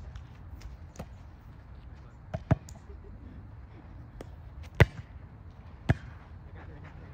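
A volleyball being struck by players' hands and forearms during a rally: a series of sharp slaps. There is a quick double hit about two and a half seconds in, the loudest hit near five seconds, and another about a second later, with a few fainter taps between.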